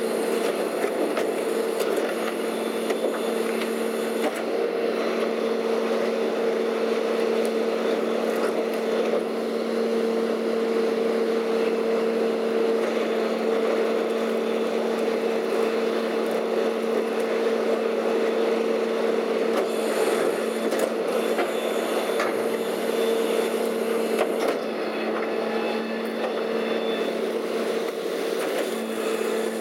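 Leach 2R-II rear-loading garbage truck running at a standstill with its hydraulics engaged: a steady hum that holds one pitch, with scattered knocks and clatter of debris and a steel container at the hopper.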